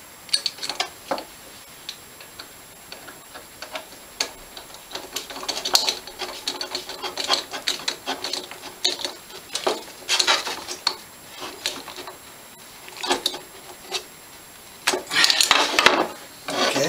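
A metal clamp on an inlet tube being tightened with a screwdriver-handled driver: irregular small metallic clicks and ticks in short bursts, then a louder burst of metal clattering near the end.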